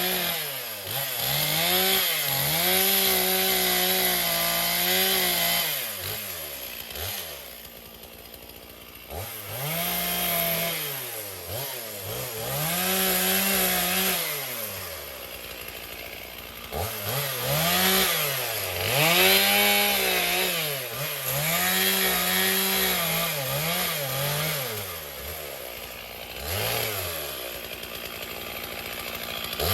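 Chainsaw engine revving and cutting through a fallen branch. The engine pitch rises and falls every few seconds, and it drops back to a quieter idle twice, about seven and fifteen seconds in.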